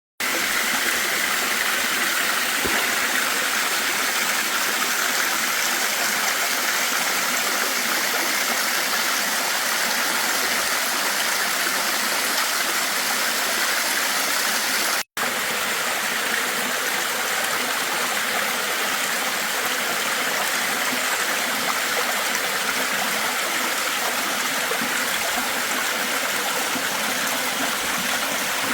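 Steady rush of water at an even level, with no surge or rhythm, broken once by a split-second gap about halfway through.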